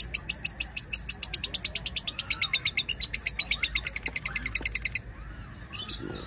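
Lovebird singing its long chattering trill, a run of rapid high chirps that speeds up into a fast rattle and cuts off suddenly about five seconds in. A short burst of chirps follows near the end.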